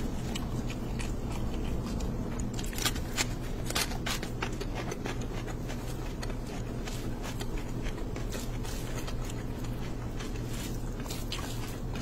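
Wet, sticky clicks and squelches of a bare hand kneading rice into curry gravy on a plate, thickest a few seconds in, over a steady low hum.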